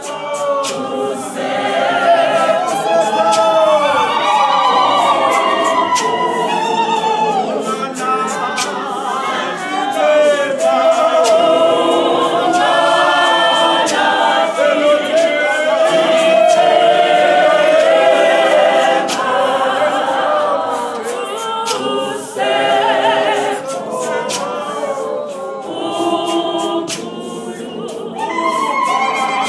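A choir of many voices singing together unaccompanied, a capella.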